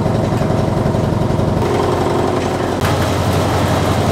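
Tea-processing machinery running steadily: a low mechanical rumble with a fast throb underneath. The sound shifts in character twice, about one and a half seconds in and again near three seconds.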